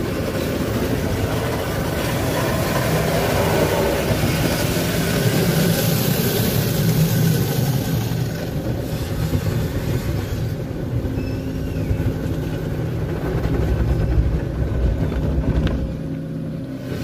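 Spinning cloth brushes of an automatic car wash scrubbing over the windshield and side windows, with water streaming on the glass, heard from inside the car's cabin as a steady heavy rumble. The hissier top of the sound dies down about halfway through while the low rumble carries on.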